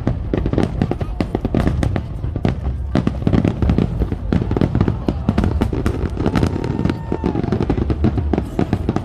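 Fireworks display: a dense, rapid barrage of bangs and crackles, several a second, over deep rumbling booms.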